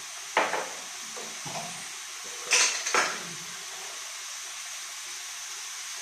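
Kitchenware clattering: bottles and dishes knocking on the counter as they are handled beside the stove. There is a sharp knock about half a second in, a smaller one after, and two loud clanks close together around the middle, over a steady hiss.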